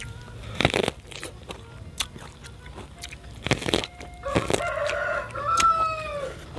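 Several crunching bites into the kernels of a raw purple corn cob. In the second half a rooster crows once, a call of about two seconds that falls in pitch at its end.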